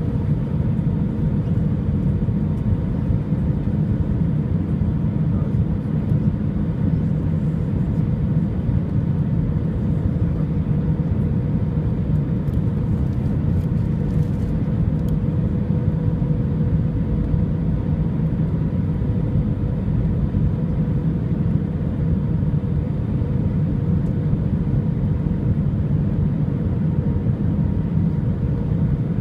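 Cabin noise inside an Airbus A319 on descent, heard from a window seat over the wing: the steady rumble of its CFM56 engines and the rushing air. A faint steady hum tone runs through it.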